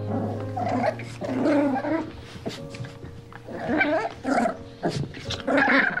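A dog making four or five short vocal sounds in separate bursts, over soft background music.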